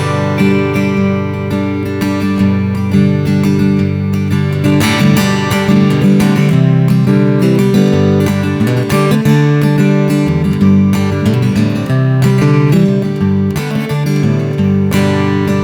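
Acoustic guitar strumming chords in an instrumental break of a country-style song, with no singing.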